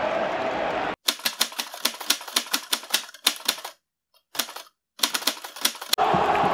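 Typewriter key-clicking sound effect: a quick, uneven run of sharp clicks, about five a second, with two short pauses, laid over dead silence. Before the clicks, in the first second, the stadium crowd's roar runs and then cuts off abruptly.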